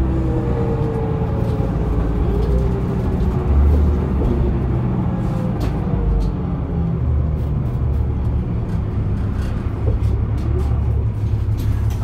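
Inside a 2004 New Flyer D40LF transit bus under way: its Cummins ISL diesel engine and ZF Ecomat automatic transmission drive a steady low rumble through the cabin. Faint whines glide in pitch as the drivetrain changes speed, with light rattles on top.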